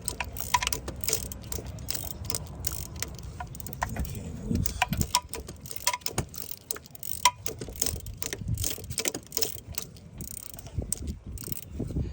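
Snap-on ratcheting box-end wrench clicking as it backs out a water pump bolt, with irregular short metal clicks and clinks.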